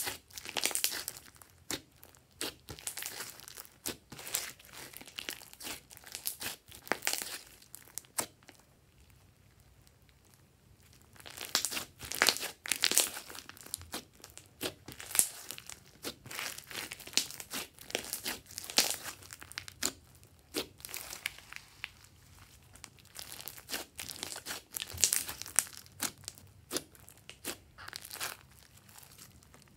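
Hands squeezing, stretching and pressing glossy slime mixed with small beads, making sticky crackling clicks. The clicks come in bursts, with a lull of about two to three seconds about a third of the way in.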